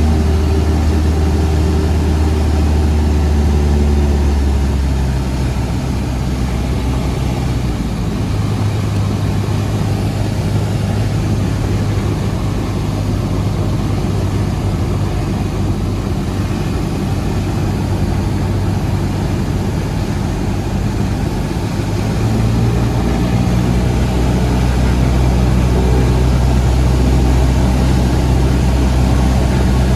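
Cessna 172's piston engine and propeller running steadily in flight. It drops a little quieter about five seconds in, as power comes back, and grows louder again a little after twenty seconds.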